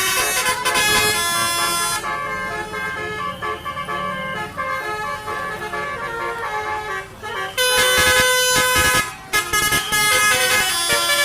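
Tour bus telolet (basuri) horn, a multi-tone musical air horn, playing a tune of changing notes. It is loud at first, softer for a few seconds from about two seconds in, then loud again from about seven and a half seconds, with a brief break just after nine seconds.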